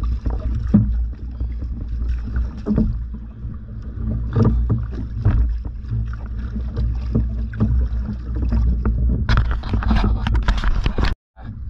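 Kayak paddle strokes, the double-bladed paddle dipping and splashing in the water again and again, over a steady low rumble. A louder, denser splashing stretch comes near the end before the sound cuts off abruptly.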